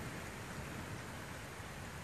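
Rain falling steadily with an even hiss, as the deep rumble of a thunderclap dies away at the start.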